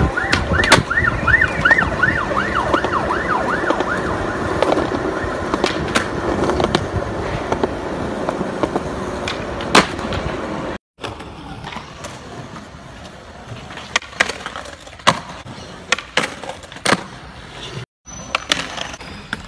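Skateboard wheels rolling on concrete, with sharp clacks of the board being popped and landed in flat-ground tricks. An emergency-vehicle siren wavers in the background for the first few seconds.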